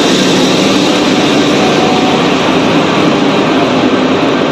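Express passenger train pulling into the platform, its coaches rolling past close by: a loud, steady rumble of wheels on rails.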